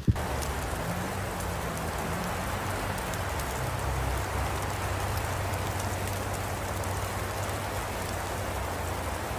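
Steady rain-like hiss, with a low hum underneath. It starts abruptly, as at a cut.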